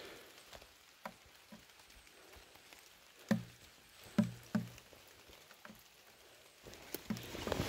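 Footsteps through brush on a wet forest floor: about six soft, irregular knocks, the strongest in the middle, over a faint steady hiss.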